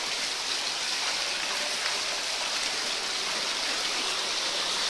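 Pool waterfall pouring steadily into a pool, a constant splashing rush of falling water.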